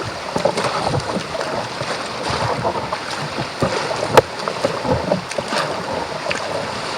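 Sea water splashing and lapping around a kayak as it is paddled, with many small irregular splashes and a sharp knock about four seconds in.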